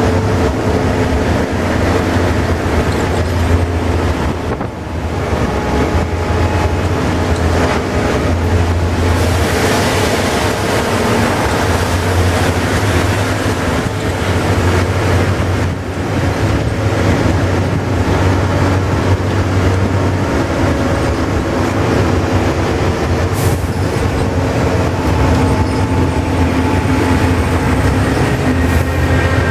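Volvo Super Olympian double-decker bus heard from inside the lower deck while under way: steady diesel engine drone and road noise, dipping briefly twice, about five seconds in and again at about sixteen seconds.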